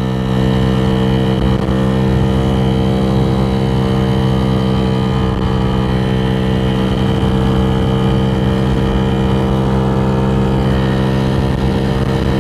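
Dongfang DF50SST scooter's 88cc big-bore four-stroke engine, fed by a GY6 150cc carburettor, pulling hard under throttle. Its note holds a nearly steady pitch while road speed climbs from about 28 to 39 mph, as the CVT keeps the revs up.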